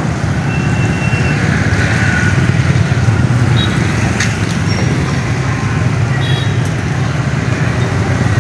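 Steady motorbike traffic passing on a wet street: many small engines running together, with tyres hissing on the wet road.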